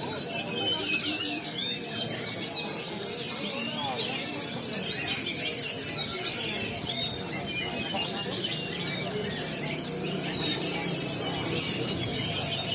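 Many caged songbirds singing at once, a dense overlap of rapid high chirps and trills, over a low murmur of people talking.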